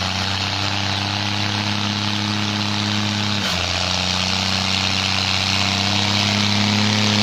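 New Holland TS6.125 tractor's four-cylinder diesel engine running steadily under load while tilling a field. The engine note breaks briefly about three and a half seconds in, then rises slightly and grows louder near the end as the tractor comes closer.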